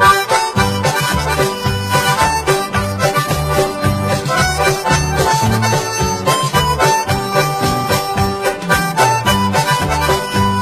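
Music with a steady beat: a pulsing bass line under sustained melody notes.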